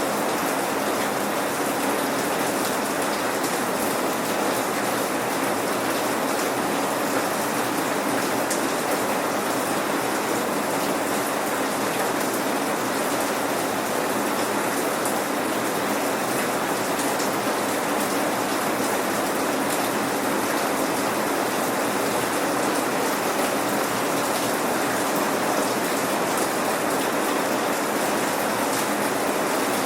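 Steady rain falling, with a dense patter of raindrops on surfaces and no thunder.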